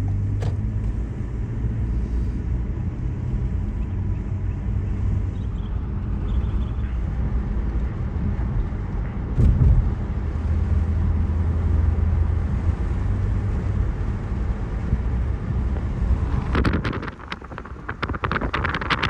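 Steady engine and road drone heard from inside a moving car, with a single thump about halfway through. Near the end the drone falls away and a dense crackling, rustling noise takes over.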